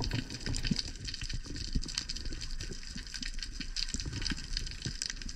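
Underwater ambience while freediving: a steady rush of water with a dense crackle of small clicks and a low rumble.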